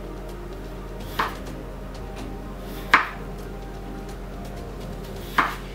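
Chef's knife slicing through a raw peeled potato and knocking down onto a plastic cutting board, three sharp chops about two seconds apart, over background music.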